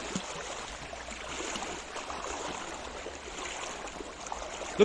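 River water flowing steadily over a shallow, stony bed, a continuous rushing trickle.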